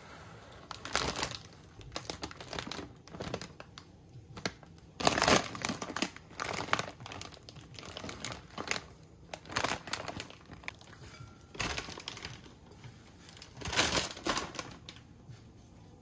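A plastic salad-kit bag crinkling in short, irregular bursts as it is handled.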